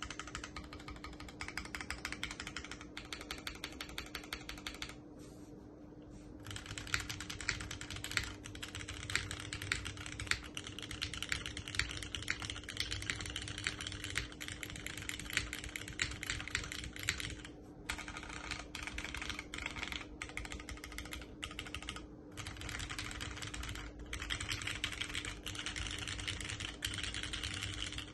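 Continuous typing on a custom mechanical keyboard, a JJW Cloudline V2 with an aluminium plate and lubed linear Cherry MX Hyperglide Black switches fitted with Gateron Milky Yellow Pro tops. The keystrokes come fast and close together, with a pause of about a second and a half around five seconds in and a few brief breaks later.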